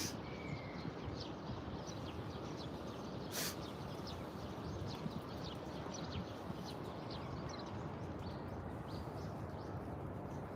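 Small birds chirping repeatedly in quick short notes over a steady low background noise, with a single sharp click about three and a half seconds in.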